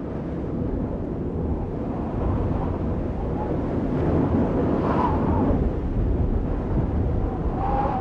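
Low, steady rumbling noise like wind or surf, swelling slightly, with faint thin tones drifting in about five seconds in and again near the end.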